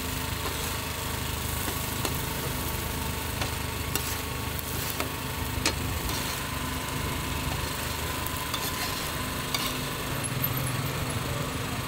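Food sizzling on a street stall's cooking surface over a steady engine hum, with a few sharp clicks, the sharpest about five and a half seconds in.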